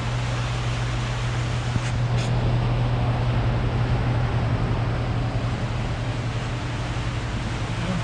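Steady mechanical hum under an even hiss of noise, holding constant without any rise or fall in pitch.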